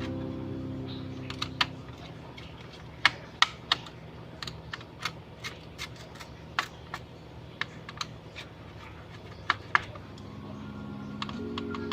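Irregular sharp clicks and taps of hands and tools handling a laptop's plastic and metal parts during disassembly, with soft background music underneath.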